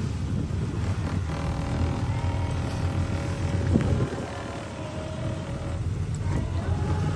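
Tour boat's engine running with a steady low rumble.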